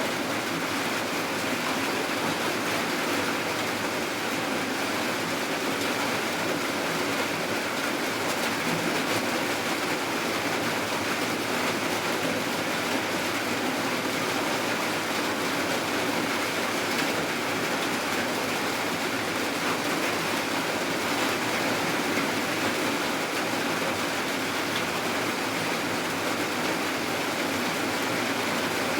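Steady rain falling: an even, unbroken hiss with no single drops or pauses standing out.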